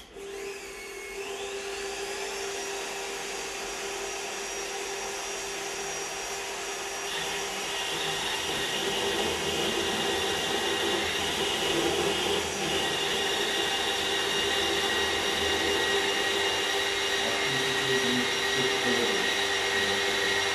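FE magnetic drill's motor starting with a rising whine, then running steadily. About seven seconds in it gets louder and rougher as the annular cutter bites into the steel plate and cuts, and it stops abruptly at the end.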